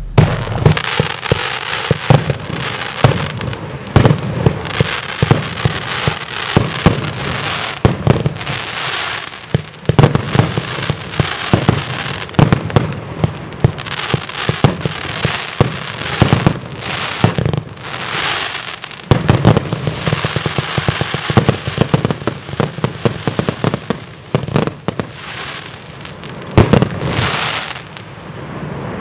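A 72-shot fan-shaped firework cake (two 36-shot cakes) firing in rapid succession: a fast stream of launch thumps and bangs over steady crackling and hiss, with short lulls about 10 and 19 seconds in.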